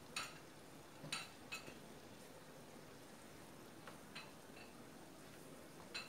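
Wooden spoon stirring mutton liver in a non-stick frying pan, knocking and scraping against the pan in a few short sharp strokes, the loudest near the start and about a second in, over a faint sizzle of the frying.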